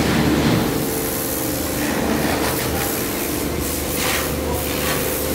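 Pressure washer running steadily: a constant motor hum under a hiss of spraying water, with the hiss swelling briefly a few times.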